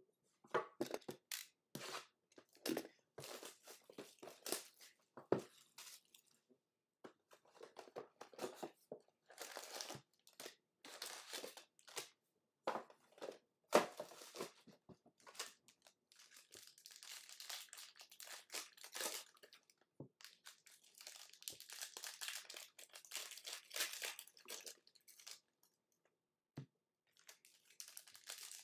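Plastic wrapping on a box of trading cards being torn and crinkled open: irregular crackling and tearing in short bursts with brief pauses.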